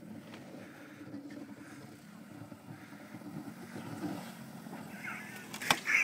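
Fourth-generation Honda Civic's engine running steadily at low revs as the car pushes a homemade plough blade through snow, slowly getting louder as it comes closer. A sharp knock sounds near the end.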